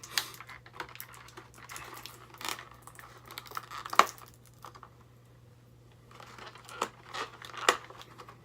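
Plastic blister packaging crinkling and crackling as it is worked by hand to free a toy action figure, with one sharp snap about four seconds in and a short lull after.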